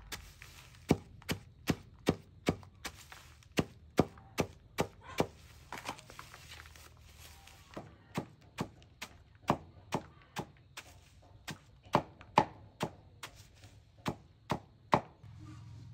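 Steady chopping, a blade striking again and again at about two and a half strokes a second, some thirty strokes in all, stopping about a second before the end.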